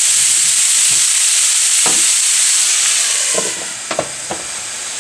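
Diced beetroot sizzling in hot oil in a frying pan with a steady hiss. A glass lid goes on with a few clinks about three and a half seconds in, and after that the sizzle is quieter and muffled under the lid.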